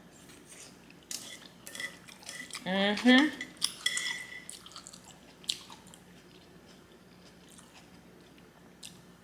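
Close-up eating sounds of someone eating glass noodles (japchae): wet mouth smacks and chewing with scattered light clicks. A brief voiced sound from the eater, rising in pitch, comes about three seconds in and is the loudest moment.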